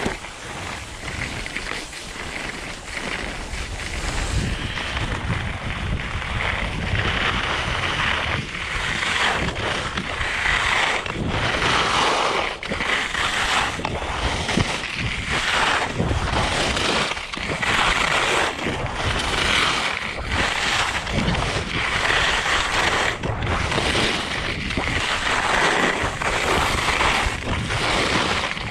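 Skis scraping and hissing over hard-packed snow while skiing downhill, with wind rushing over the action camera's microphone. The noise grows louder over the first several seconds as speed builds, then swells and eases with each turn.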